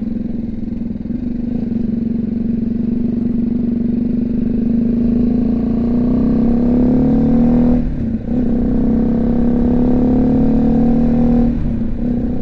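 BMW G310GS single-cylinder motorcycle engine running under load. Its note holds steady, then climbs under acceleration, with upshifts about eight seconds in and again near the end, where the pitch briefly drops and picks up again. Heard through a helmet-mounted mic with wind rush.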